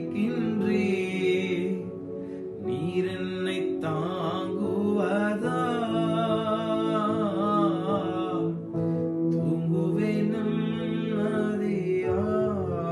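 A man singing a slow Tamil Christian worship melody with many pitch turns, over sustained chords from a Yamaha PSR-S975 arranger keyboard.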